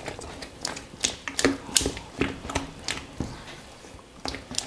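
A hand beating loose, sticky maida-and-curd bonda batter in a stainless steel bowl: wet slaps and squelches about twice a second. The batter is being worked by hand so the bondas turn out soft and risen.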